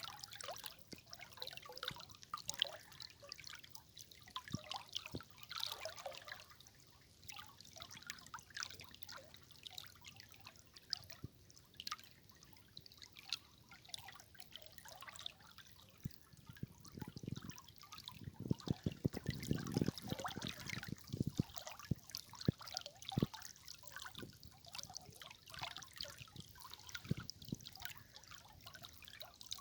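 River water trickling and splashing, a fairly quiet, busy patter of small splashes, with a short run of deeper gurgling plops a little past halfway.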